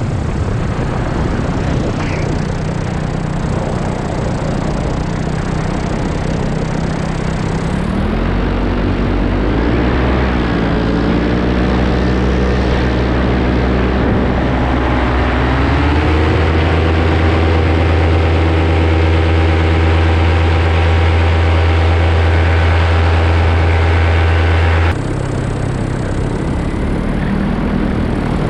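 Paramotor engine and propeller running. The pitch climbs as the throttle opens about eight seconds in and again near the middle, holds steady at high revs, then drops suddenly to a lower note near the end.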